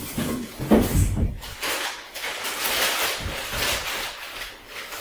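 Clear plastic bag crinkling and rustling as it is handled and pulled off a small engine, with a couple of low bumps about a second in.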